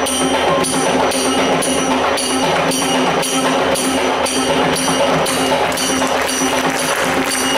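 Music with a steady beat of about two beats a second and bright, high percussion on each beat, accompanying a stage dance.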